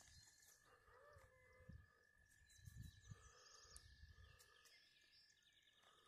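Near silence: faint outdoor ambience with scattered distant bird calls, a faint steady high tone, and a few soft low thumps.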